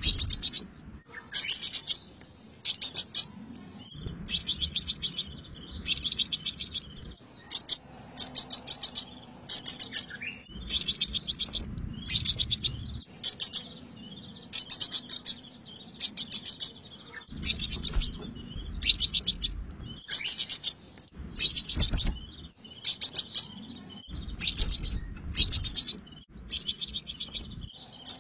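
Crimson sunbird calling: short bursts of rapid, sharp, high notes, repeated every second or two.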